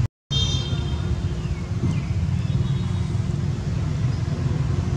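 Steady low outdoor background rumble. It drops out completely for an instant at the start, and a few faint high-pitched chirps follow soon after.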